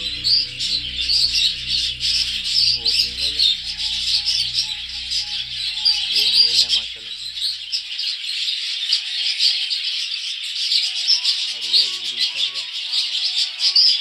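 A flock of budgerigars chattering and warbling non-stop, a dense mass of overlapping high chirps.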